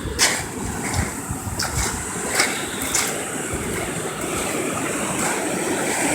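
Steady rush of floodwater from a flooded creek, with several short knocks in the first three seconds; the rush grows a little louder near the end.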